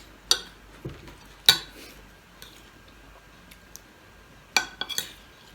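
Cutlery clinking against a plate while eating: a handful of separate sharp clinks, the loudest about a second and a half in and a quick cluster of three near the end.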